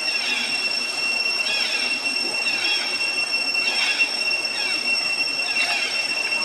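A steady high-pitched insect drone, with short sweeping chirps every second or two.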